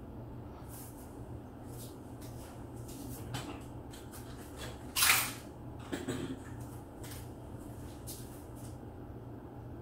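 Footsteps and the rustle of cloth being handled as a person moves about a small room, with one louder rustle about five seconds in, over a steady low hum.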